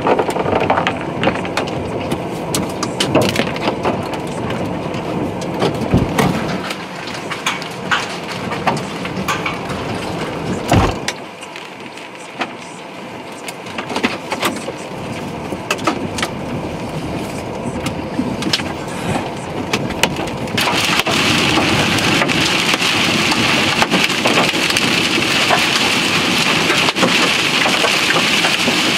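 Hailstones pelting a car's body and cracked windshield: a dense, irregular clatter of sharp hits with a few heavier thuds. About twenty seconds in it gives way to a steady hiss of heavy rain on the windshield.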